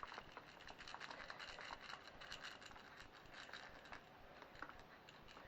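Milk chocolate chips being sprinkled over the traybake: faint, light ticking and pattering that thins out after about four seconds.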